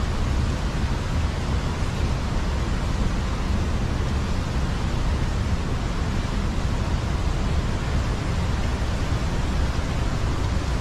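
Steady rushing of flowing water, an even loud hiss with a deep rumble underneath that does not change.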